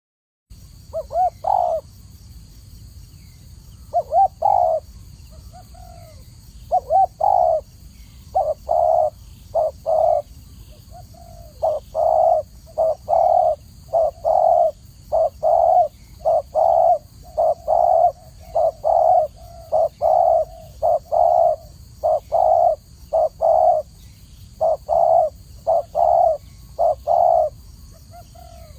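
Spotted dove cooing: a long series of short, low coos given in runs of several notes with brief pauses between. A faint steady high hiss sits underneath.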